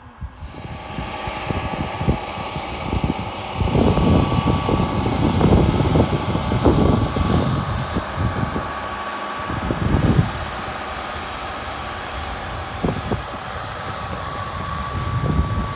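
New Holland T8 tractor's six-cylinder diesel engine running a steady drone under load as it pulls a ripper-bedder through the field, with uneven low rumbling that is loudest from about four to seven seconds in.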